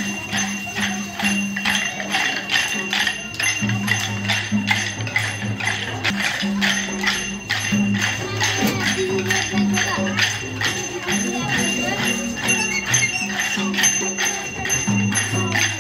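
Accompanying music for a Newar monkey dance: metal cymbals and percussion strike a fast, even beat, with a low held tone that drops out and returns.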